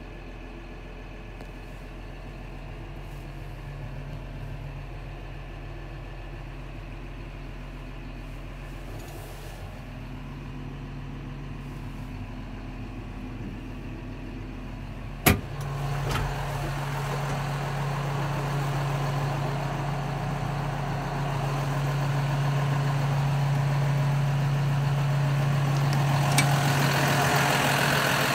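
John Deere 6150R tractor's diesel engine idling steadily, at first muffled by the closed cab. About halfway through there is a sharp click, as the cab door opens, and from then on the idle is louder and fuller.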